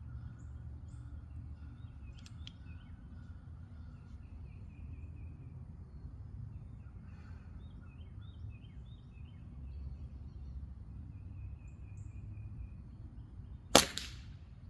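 A single sharp shot from a .177 pre-charged pneumatic air pistol near the end, over a steady low background with faint bird chirps.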